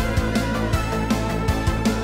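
Background music with a steady beat over held bass notes.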